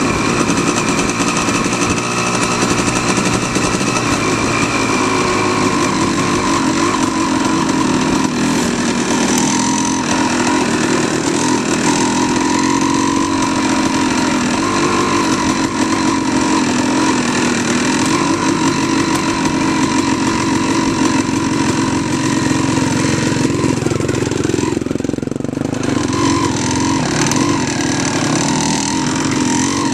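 Off-road motorcycle engine running up close, its pitch rising and falling a little with the throttle; near the end it briefly eases off before pulling again.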